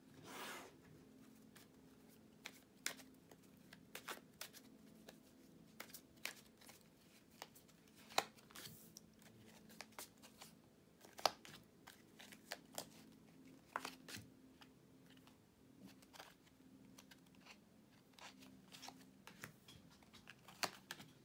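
Tarot cards being shuffled and handled on a table: irregular light clicks and slaps of card on card and on the tabletop, over a faint steady hum.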